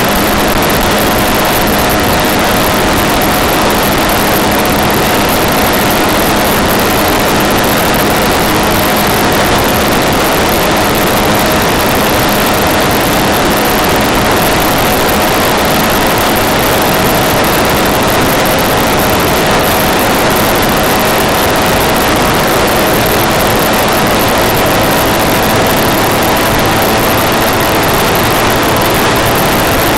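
Car driving at a steady speed: a loud, continuous mix of engine drone and tyre and road noise, with a steady pitch that neither rises nor falls.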